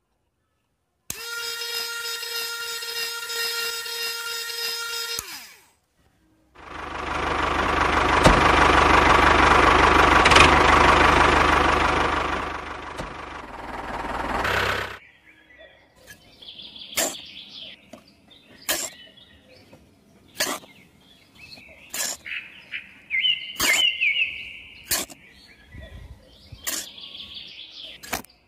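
A toy cement mixer's small electric motor hums at a steady pitch for about four seconds, then winds down. A louder rushing noise swells and fades, followed by a series of sharp taps about every second and a half as a small shovel scoops cement powder into a plastic toy trailer, with birds chirping faintly.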